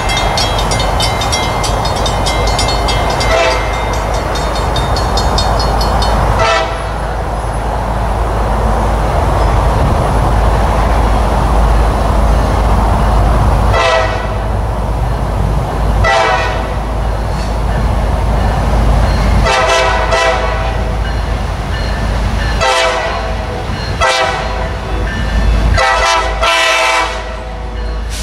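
CSX SD50-3 locomotive's air horn sounding a series of short toots as the freight train approaches, over a steady low rumble. The toots come closer together near the end.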